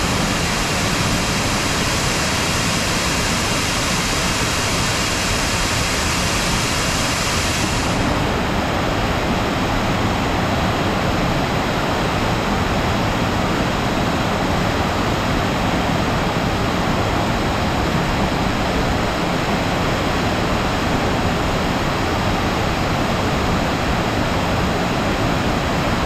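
Waterfall pouring onto rocks: a loud, steady rush of falling water. The highest part of the hiss drops away about eight seconds in.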